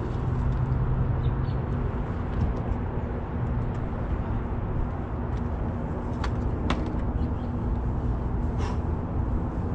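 Steady low rumble of city background noise with a constant low hum, broken by a few short sharp clicks in the second half.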